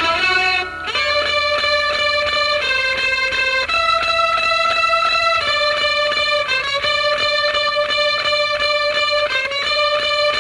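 Background music led by an electric guitar: held notes that shift pitch every second or two, pulsing in a fast even rhythm.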